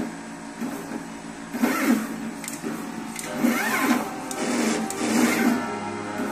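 NeoDen desktop pick-and-place machine at work: its placement head's motors whine up and down in pitch with each move, in three bursts spaced about every one and a half to two seconds.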